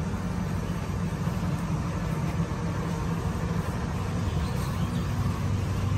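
A steady low mechanical hum, like a motor running, over outdoor background noise.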